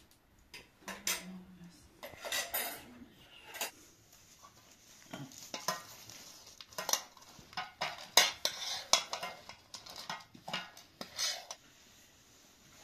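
A metal spoon scraping and clinking against a large pan and plates as food is dished out and eaten, in irregular clatters.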